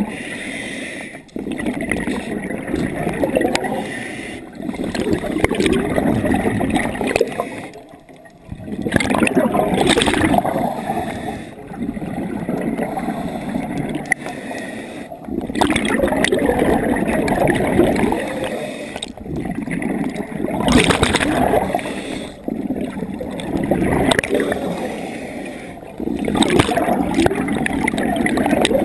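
Scuba diver breathing through a regulator underwater: exhaled bubbles gurgle and rush past the camera in long surges, broken by short pauses about every three to four seconds with each breath.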